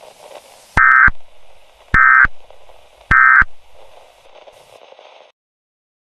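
Emergency Alert System end-of-message data bursts: three short, harsh digital screeches about a second apart, over a faint static hiss that cuts off suddenly near the end. The three bursts mark the end of the alert.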